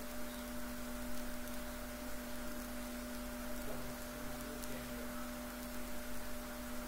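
A steady hum of two constant tones over an even hiss.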